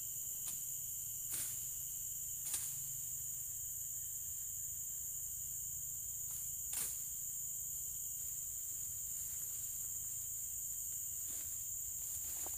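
Steady high-pitched insect buzz, with three short sharp swishes of a machete slashing through undergrowth: one about a second in, one a couple of seconds later, and one about halfway through.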